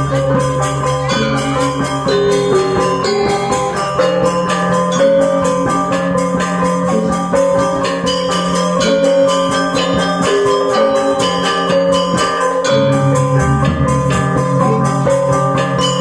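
Balinese gong kebyar gamelan playing: bronze metallophones struck in dense, fast figures over held low gong tones, which drop away about ten seconds in and come back near the end.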